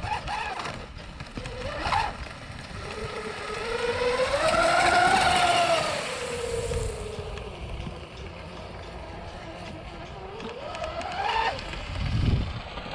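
Zonda 41 RC speedboat's dual electric motors whining as it runs on the water. The whine climbs in pitch and loudness to a peak about five seconds in, then falls away. There are short rising bursts of throttle near the start and again about eleven seconds in, over a low rumble of wind.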